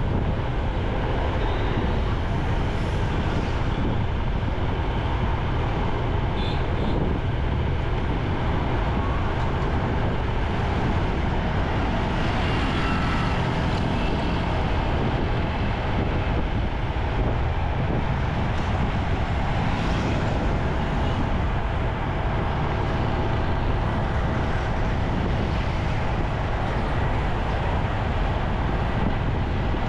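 Steady city traffic noise heard from a moving motorcycle: a continuous rumble of engines and road.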